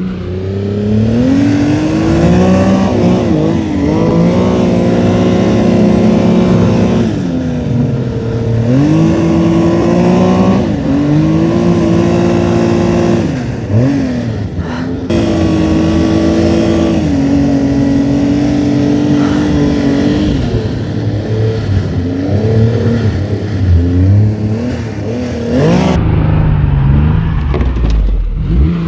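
Snowmobile engine running hard, its revs climbing, holding steady and dropping back several times, with a brief dip in the middle.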